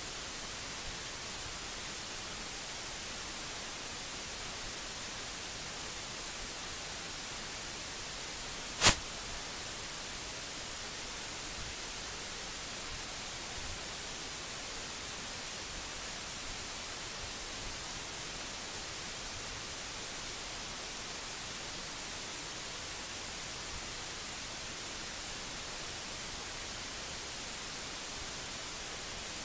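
Steady hiss from the recording's microphone and noise floor, with one sharp click just under nine seconds in.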